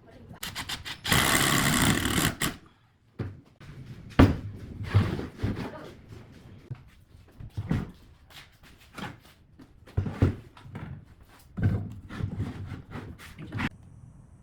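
Workshop knocking and clattering of wood being handled, a string of sharp separate knocks, after a loud noisy burst about a second in that lasts about a second and a half.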